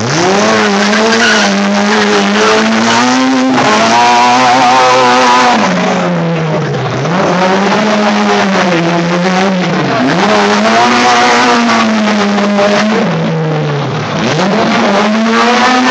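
Tuned Autobianchi A112 four-cylinder engine revving hard on a gymkhana run. The revs fall sharply and climb back about four times as the car is driven through the cone course.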